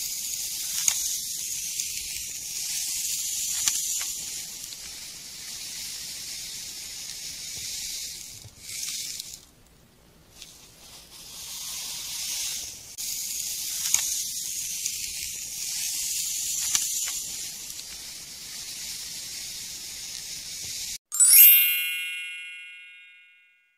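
Plastic toy shovel scooping and scraping through dry play sand in a plastic tub: a high hiss that swells and fades, with a few light clicks of the shovel against the tub. Near the end, a single bright chime rings out and dies away over a couple of seconds.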